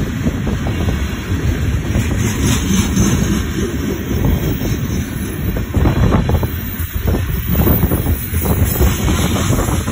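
Covered hopper cars of a freight grain train rolling past close by: a loud, steady rumble of steel wheels on rail, with a run of sharper clacks past the middle as wheels pound over the rail joints.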